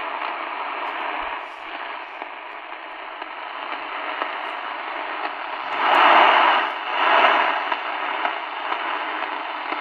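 Tecsun PL-450 portable radio's speaker giving mediumwave AM static and hiss on 660 kHz, with no clear station coming through. The hiss swells louder twice, about six and seven seconds in, as the set is turned by hand to null interference.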